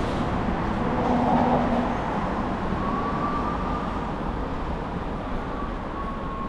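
Street traffic: the steady noise of passing vehicles, with a faint thin whine that comes in about three seconds in.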